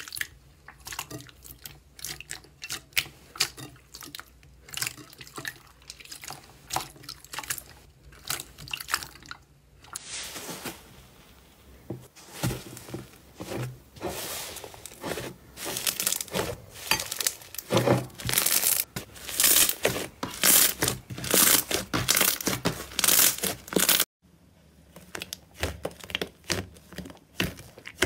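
Hand-squished slime, clear blue and then thick yellow and purple, making many small sticky pops and crackling clicks as it is pressed and pulled. The clicking is thickest and loudest in the middle stretch.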